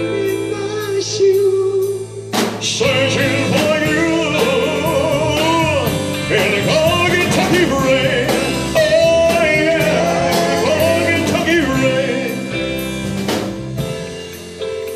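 Live rock band music: drum kit, bass guitar, electric guitar and keyboards play a slow ballad passage with no words. A wavering lead melody line runs over it. A hard drum hit about two seconds in brings the full band up louder.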